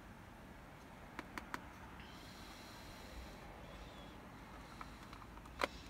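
Light plastic clicks and taps of a Sony Walkman WM-32 cassette player's rear cover being handled and fitted back on: three quick clicks a little over a second in and one louder click near the end.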